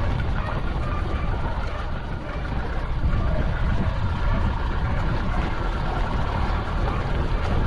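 Pickup truck driving along a dirt road, heard from a camera mounted on its outside: a steady rumble of engine and tyres on the dirt with wind noise.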